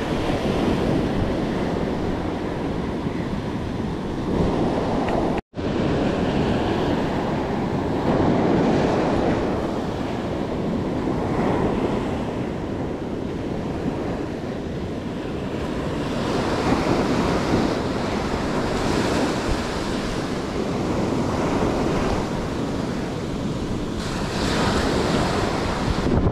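Shore-break surf washing up and draining back over a sandy beach in steady swells, with wind buffeting the microphone. The sound cuts out for an instant about five seconds in.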